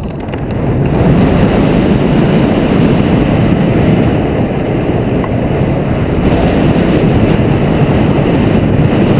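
Wind buffeting the microphone of a camera mounted on a hang glider's wing in flight, building over the first second as the glider picks up airspeed off the launch, then a steady loud rush.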